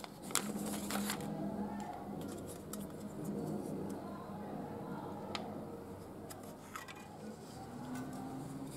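Hands handling a copper heat-pipe tower CPU cooler and loose parts: scattered light clicks and rustling, with the sharpest clicks about a third of a second and a second in.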